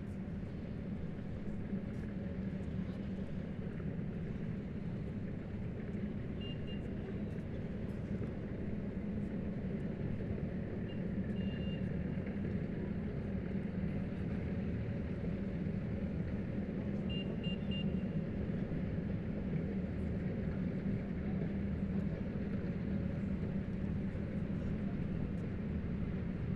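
Heavy military vehicles' engines running steadily as a column drives past, a deep continuous drone that grows a little louder in the second half. Short high pips are heard three times.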